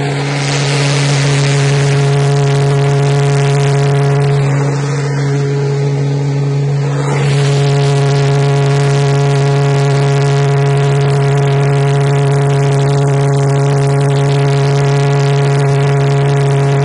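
Small pulse jet engine running steadily: a loud, even drone with a clear low pitch, its exhaust driving a power-extraction turbine. About seven seconds in, the rushing noise over the drone grows louder and stays up.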